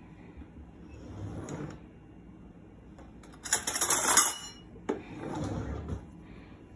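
Metal kitchen utensils clinking and rattling against a stainless-steel cooking pot, loudest in a short clatter about three and a half seconds in, with a single sharp click just before five seconds.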